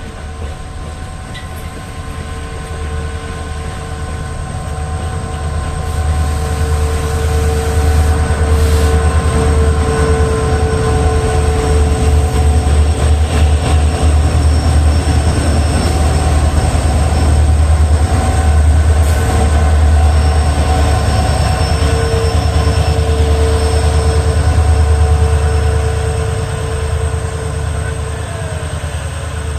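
A train passing close by on the track: a heavy low rumble with the wheels squealing in several steady high tones. It builds over the first several seconds, stays loud, and eases off near the end.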